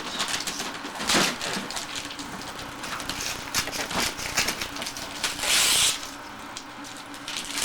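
Wrapping paper being torn and crumpled as a large present is unwrapped: irregular crackling rips, with one longer tear about five and a half seconds in.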